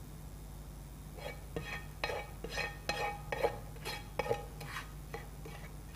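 A spatula scraping and knocking against a ceramic serving bowl as cooked minced meat is spread and levelled in it: a run of about ten short strokes, from about a second in to near the end, the bowl clinking on the harder ones.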